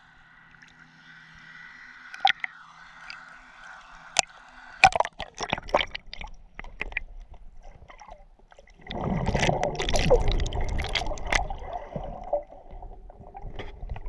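Lake water sloshing and splashing against a GoPro camera's waterproof housing at the surface, with scattered sharp clicks and splashes about a third of the way in. Once the camera is under, the water is heard through the housing as a louder, muffled gurgling rush that is strongest in the latter half and then eases off.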